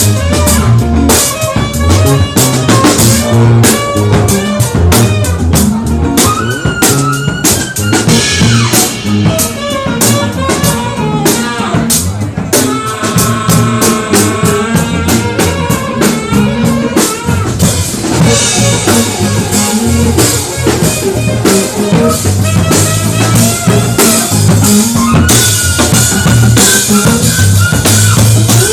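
A band playing with a full drum kit, snare and bass drum, over guitar and a melody line; the drums keep a steady beat throughout.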